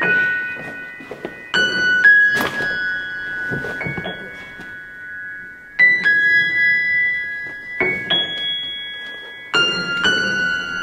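Upright piano played slowly: high notes and chords struck every second or two and left to ring out.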